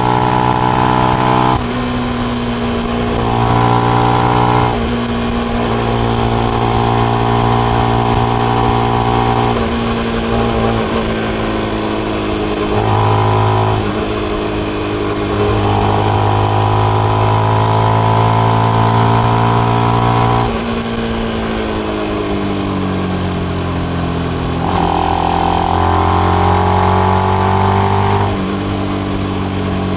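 Benelli BN125's single-cylinder 125 cc engine running through its stock exhaust with the dB killer fitted. The note holds steady for a few seconds at a time and jumps to a new pitch several times, with a slow falling stretch past the middle.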